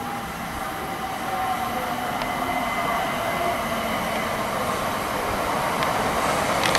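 Class 377 Electrostar electric multiple unit approaching along the platform, its running and wheel noise growing steadily louder, with a whine that falls slightly in pitch and a few faint clicks.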